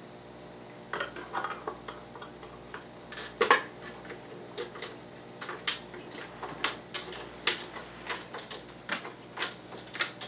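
A red-sided eclectus parrot's beak clicking and tapping irregularly on plastic toys and cage bars, starting about a second in.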